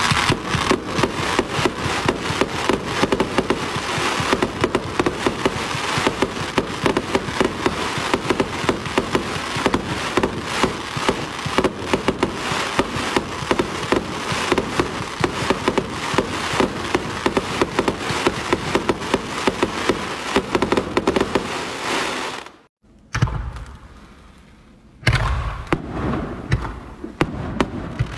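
Consumer fireworks cakes firing: a dense, rapid run of launch pops and cracks from the shots and their bursts for about twenty seconds, which stops abruptly. A few seconds later the next cake fires with a heavy thump and more bursts.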